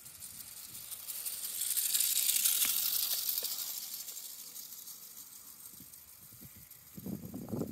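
Walther Stabil clockwork spring motor whirring as its small metal-kit vehicle runs along a steel rail: a high, hissy rattle of the gear train that grows louder as it approaches, is loudest about two seconds in, then fades. A short low rumble follows near the end.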